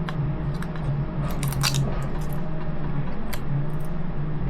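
A few sharp clicks and snaps of hard plastic being handled, the loudest about a second and a half in, over a steady low hum.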